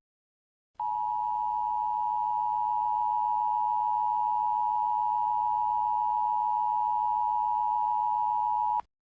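Emergency Alert System attention signal: a steady two-tone chord of 853 and 960 Hz. It starts about a second in, is held for about eight seconds and then cuts off sharply. It announces that an emergency alert message follows.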